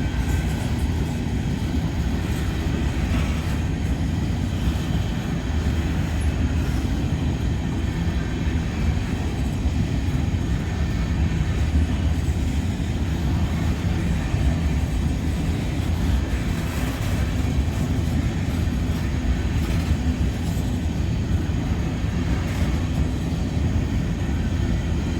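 Freight train cars rolling past on the track, a steady low rumble of wheels on rail with a few faint clicks.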